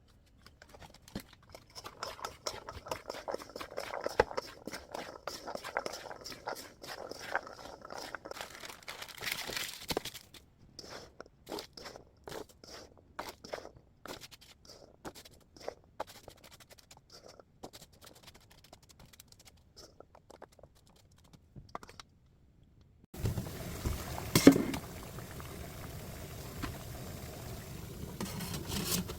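Clicking and scraping in a mixing bowl as chickpeas are tossed and coated with glutinous rice flour, busiest for the first ten seconds and then sparser. After a cut about 23 seconds in, a steady rushing noise starts, with one loud knock a second later.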